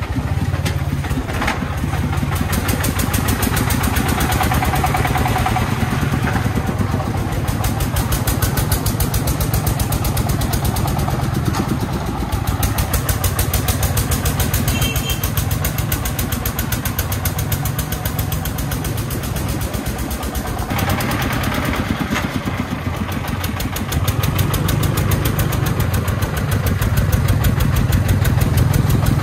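Three-wheeled công nông dump truck's 33-horsepower diesel engine running as it drives loaded with stone, a fast, even chugging. It gets louder near the end.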